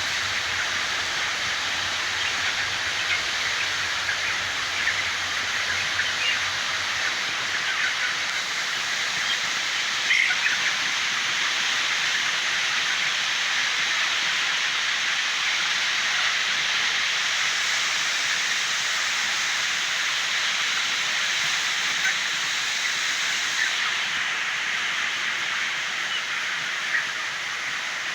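Steady hissing din of a large flock of 26-day-old broiler chickens in a poultry house, with a few short calls standing out now and then.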